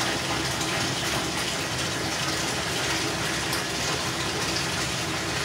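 Steady rushing noise with a faint low hum under it, unchanging throughout.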